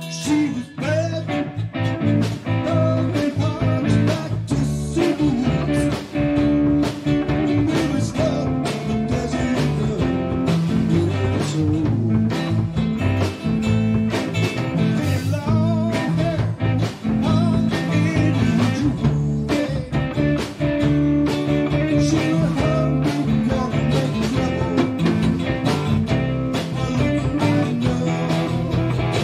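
Live band playing an instrumental passage: drum kit, electric bass and electric and archtop guitars, with a lead line that bends and wavers in pitch over a steady beat.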